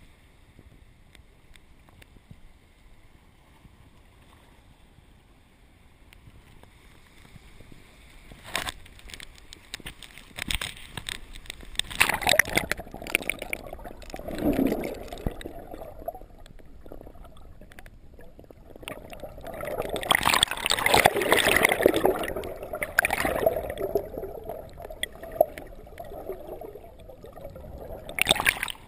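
Surf washing and gurgling around a GoPro held under the shallow water, heard muffled, with bubbles. It is quiet at first, then swells in surges from about eight seconds in, is loudest a little past the middle, and cuts off at the end.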